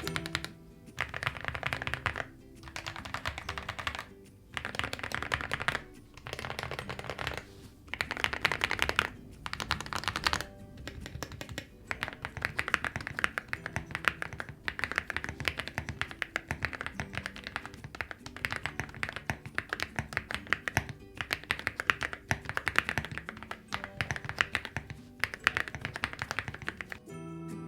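Typing on an Attack Shark aluminium mechanical keyboard fitted with new PBT keycaps: rapid keystrokes in bursts of one to two seconds with short pauses between them, over soft background music.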